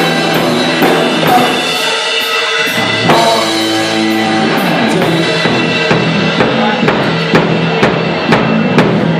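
Rock band playing live: a drum kit with bass drum and snare under held, pitched chords. The low end drops out briefly about two seconds in, then sustained chords ring before the drums settle into a steady beat of about two hits a second.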